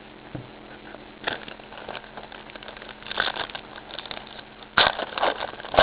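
Crinkling and rustling of trading-card pack wrappers and cards being handled by hand, in short irregular bursts with small clicks, the loudest near the end.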